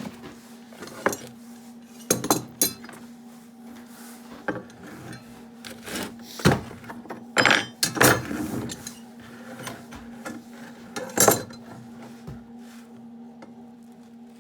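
Metal parts and tools clinking and knocking as they are handled and set down, in irregular separate strikes, a few of them loud, over a steady low hum.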